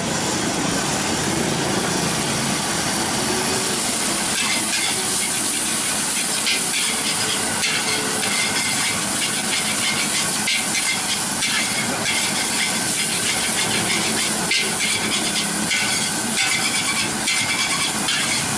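Fried rice with squid pieces sizzling in a hot steel wok, with a metal spatula repeatedly scraping and knocking against the pan as it is stir-fried. The sizzle is a loud, steady hiss, and the spatula strokes come thick and fast from about four seconds in.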